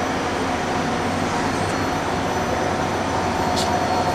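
Chip conveyor of an Okuma LB25 CNC lathe running steadily, a continuous mechanical running noise with a constant hum.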